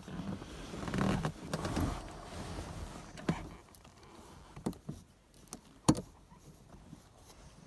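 Hands handling small shifter parts during reassembly: rustling and scraping for the first few seconds, then a handful of short, sharp clicks and taps, the loudest about six seconds in.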